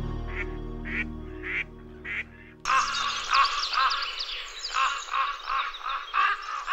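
Ducks quacking while background music fades out: four separate quacks in the first couple of seconds, then a louder, denser run of quacking that starts suddenly about two and a half seconds in.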